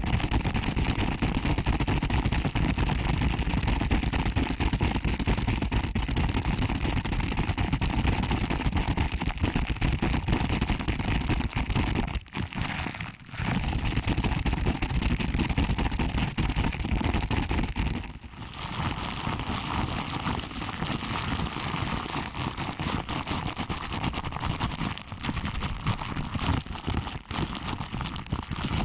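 Fingers pinching and rubbing a microphone's ear up close: a dense, fast crackling and scrunching, broken twice by a brief pause.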